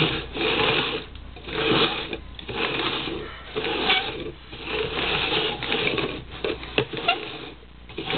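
Red plastic party cups being slid and shuffled across a hardwood floor, a repeated rasping scrape in short strokes.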